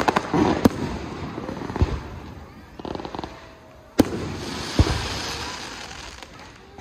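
Aerial fireworks bursting in a few sharp bangs, the loudest about four seconds in, followed by a fizzling crackle of crackling stars.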